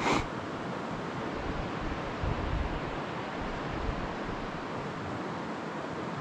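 Steady rushing noise of water and wind on the microphone as a kayak moves along a calm river, with a short splash-like burst at the very start and a few low bumps about two seconds in.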